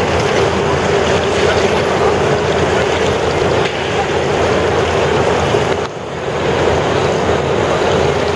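Steady, loud rushing noise like wind, with a low hum running through it; it drops briefly and comes back about six seconds in.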